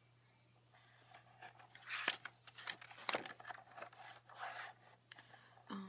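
A glossy paper page of a spiral-bound desk calendar being flipped over on its wire binding: rustling and scraping with a few sharper clicks, loudest about two and three seconds in.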